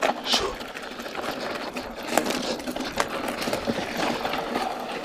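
Mountain bike descending fast over a rough dirt and stony trail: rapid rattling and clatter from the bike, with frequent short knocks, over the steady rush of tyres on dirt.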